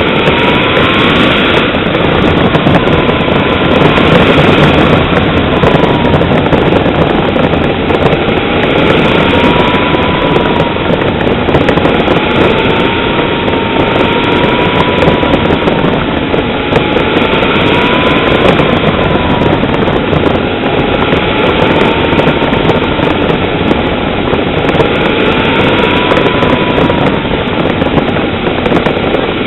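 Radio-controlled model jet aircraft's engine running loudly and continuously, its whine slowly rising and falling in pitch every few seconds.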